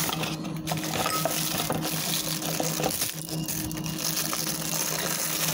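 Clear plastic packaging bag crinkling and rustling as it is handled and opened by hand, an irregular crackle, over a low steady hum.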